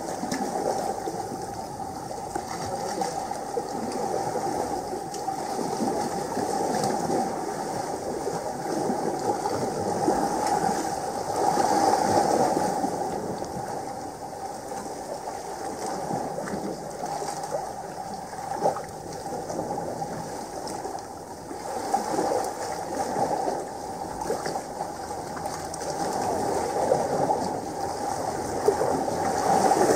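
Sea water sloshing and washing against the rocks, a steady rushing wash that swells and eases, louder about a third of the way through and again near the end.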